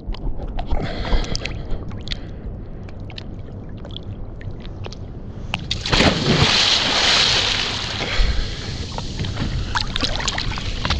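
Ocean water splashing and sloshing close to the microphone, with a low rumble of wind on the microphone. About six seconds in, a louder rush of water lasts about two seconds.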